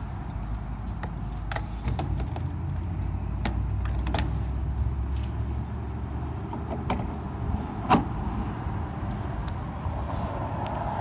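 A vehicle engine running with a low rumble that fades about six and a half seconds in, with scattered sharp clicks and knocks throughout, the loudest about eight seconds in.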